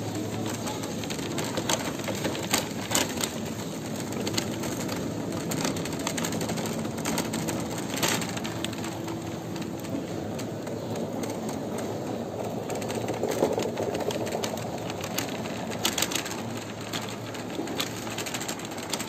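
Plastic shopping trolley being pushed over a tiled supermarket floor: a steady rolling rattle with scattered sharp clicks and knocks.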